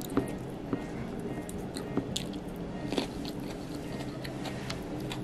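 A person chewing crunchy raw salad of lettuce, radicchio and chicory, with a few short sharp crunches and clicks scattered through it.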